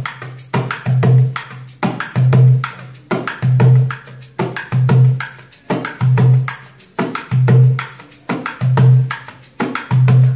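Darbuka played in a steady groove with a shaker held in the striking hand: a deep dum about every 1.2 s, with quick sharp tek strokes and shaker rattles in between. It is a combination meant to sound like bongos played together with a shaker.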